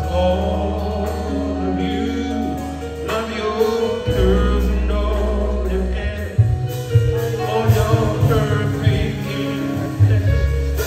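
Live band playing: a male singer over electric guitar, keyboard, bass and drums.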